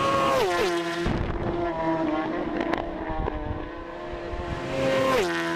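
Motorcycle engine revving: the pitch drops sharply from a high rev just after the start and again about five seconds in, holding a steady note between.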